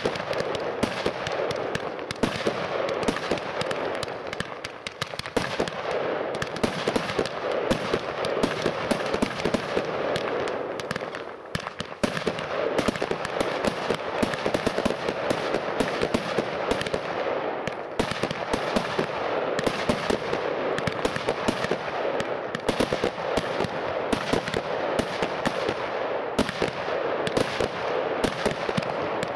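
Weco Power Tec PRO 300.1 fireworks compound cake firing without pause: a rapid, dense stream of shots and small aerial bursts, with a brief lull about twelve seconds in.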